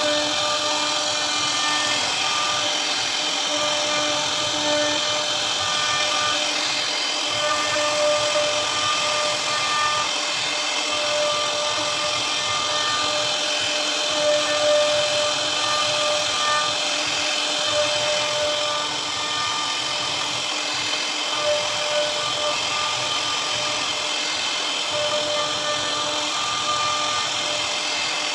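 CNC router spindle running steadily while its bit carves into a wooden panel: a continuous hiss of cutting with a whine whose strength wavers as the cut goes on.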